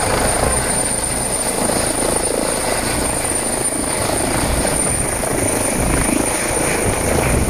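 Turbine air-ambulance helicopter hovering just above a helipad: steady loud rotor and turbine noise with a thin high whine held throughout, and a low pulsing from the rotor blades.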